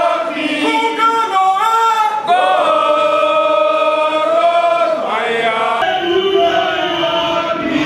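A crowd of football supporters singing a chant together, mostly male voices holding long notes. A low rumble joins underneath about six seconds in.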